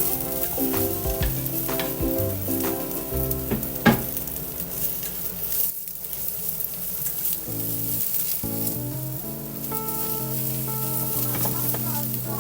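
Food sizzling in a hot frying pan as it is stirred, with scattered knocks of the utensil against the pan, the loudest about four seconds in. Soft background music plays throughout.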